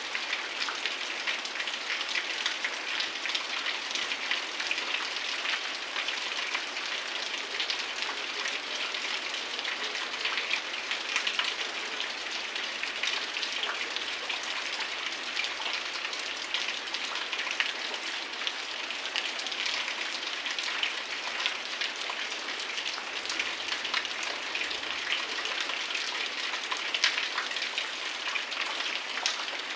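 Heavy rain falling in a steady hiss, with many individual drops ticking sharply close by.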